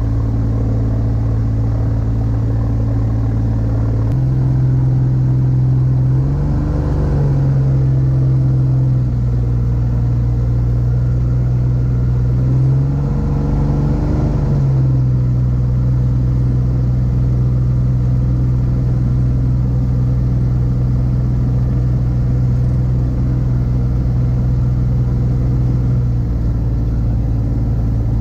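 Rotax 582 two-stroke engine of an X-Air microlight running at low ground power with the propeller turning. The engine speed steps up about four seconds in, rises briefly twice more, and settles back down near the end.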